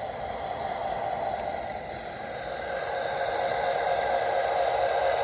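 G-scale model diesel locomotive and caboose rolling along garden track: a steady whirr of the motor gearing and wheels on the rails, growing louder from about two seconds in as the train nears.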